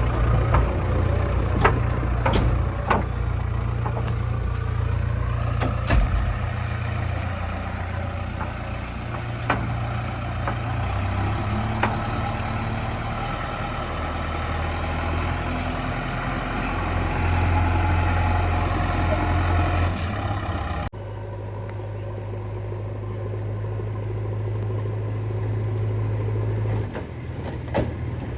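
JCB 3DX backhoe loader's diesel engine running steadily, with occasional sharp knocks. About three-quarters of the way through, the sound changes abruptly to a different steady engine drone.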